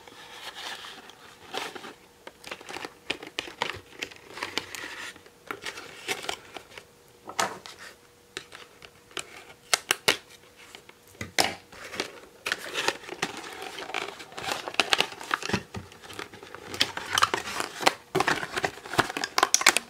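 Westcott scissors snipping the plastic fastenings of a boxed doll, mixed with irregular crinkling, rustling and clicking of the cardboard box and plastic packaging as it is handled.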